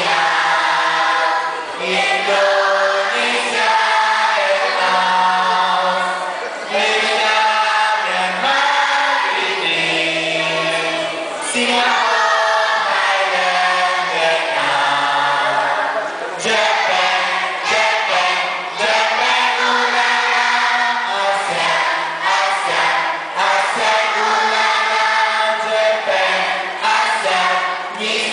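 A large group of schoolchildren singing together as a choir, one held note after another, without a break.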